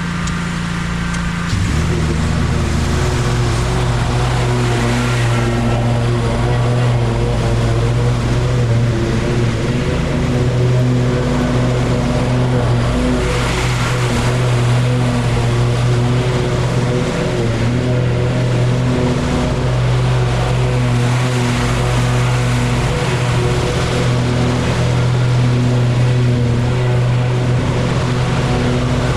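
Small gasoline engine of lawn-mowing equipment running steadily under load. Its note drops about a second and a half in, then holds.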